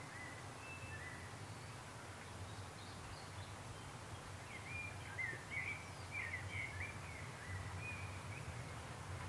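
Birdsong: short whistled chirps and phrases from a small bird, a few near the start and a busier run in the second half, over a faint steady low rumble.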